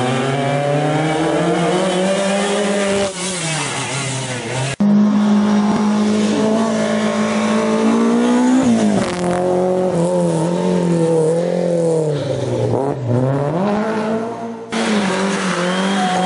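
Rally car engines at full throttle, the pitch climbing and dropping again and again through gear changes and lifts off the throttle. The sound changes abruptly about five seconds in and again near the end, as one car gives way to another.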